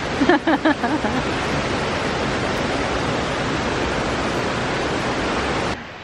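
Steady rushing of small mountain waterfalls, with a brief voice in the first second; the rushing cuts off abruptly just before the end.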